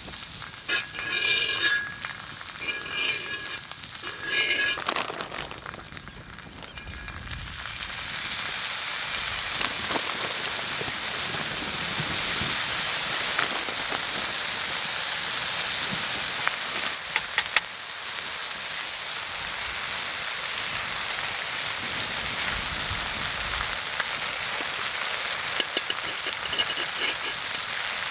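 Food frying on a multi griddle: a steady sizzle that swells in about eight seconds in and carries on loud, with a few sharp pops or spatula clicks. Near the start, three short high calls sound over a quieter sizzle.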